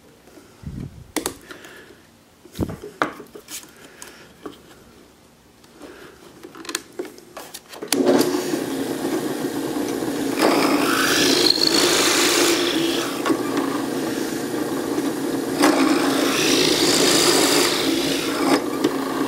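A few knocks and clicks as the wood and bit are handled, then about eight seconds in a drill press starts and runs with a steady hum. Its bit bores into the plywood block in two louder spells of cutting.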